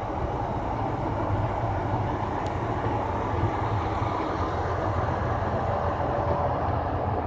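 Red regional train standing at a station platform, its steady low rumble running continuously.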